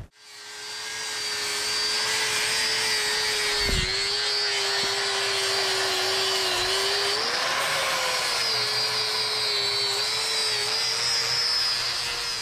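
Electric grinder grinding the heads off the steel rivets in a truck frame rail, so they can be punched out. A steady whine over a hiss of metal on the wheel, sagging a little in pitch as the wheel is pressed in and picking back up, with one dull knock about four seconds in.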